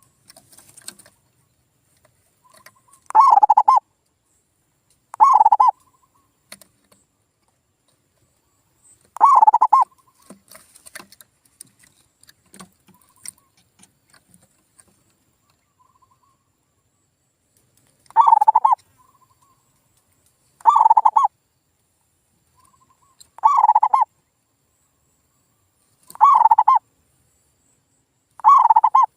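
Male zebra dove (perkutut) singing its cooing song: eight loud rolling coo phrases, each under a second, spaced a few seconds apart with a long pause mid-way, and faint short notes and light clicks between them.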